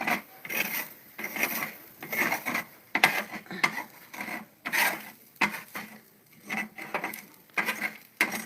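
Close-up chewing, crunching mouthfuls of food in short irregular bites about two or three times a second.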